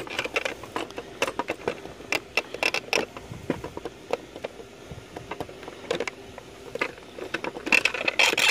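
Irregular clicks, ticks and snaps of hard plastic as a flat blade pries a small round control motor out of a refrigerator's plastic control housing, with a quicker run of louder clicks near the end.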